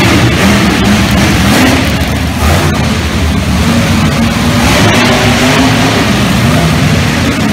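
Monster truck engines running loud, their pitch rising and falling as they rev and drive around the arena.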